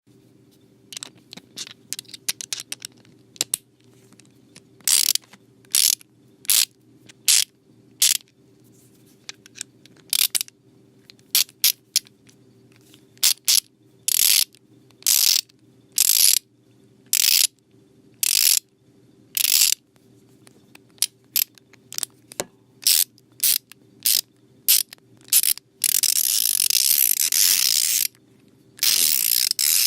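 Ratchet wrench ratcheting a bolt: short strokes of rapid pawl clicks, roughly one stroke a second, with lighter scattered clicks in the first few seconds and a longer unbroken run of clicking lasting about two seconds near the end.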